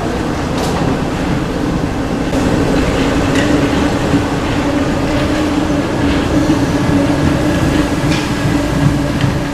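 RATP MF67 Paris Métro train running past and pulling away into the tunnel. A steady loud rolling rumble with a held hum, and scattered clicks as the wheels cross rail joints.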